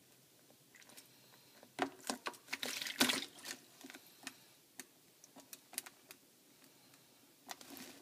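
A green-cheeked conure bathing in a shallow plastic tub, its flapping wings splashing and flicking water. The splashing comes in short bursts, loudest about three seconds in, then a few scattered drips and one more splash near the end.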